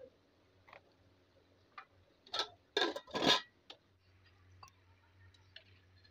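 A few faint, sharp ticks, then a quick cluster of four or five louder knocks about two and a half to three and a half seconds in, then more faint scattered ticks.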